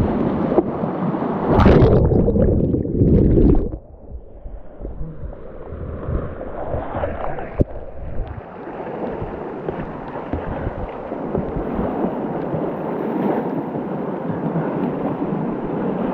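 Whitewater rapids rushing and splashing around a kayak, close to the microphone. A loud surge of crashing water runs from about one and a half to nearly four seconds in, then drops suddenly to a steadier rush of fast water, with a sharp knock near the middle.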